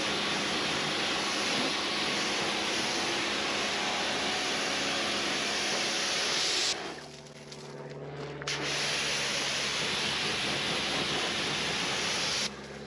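Pressure washer spraying a steady jet of water to rinse the wheels, with the trigger released for about two seconds midway and again near the end.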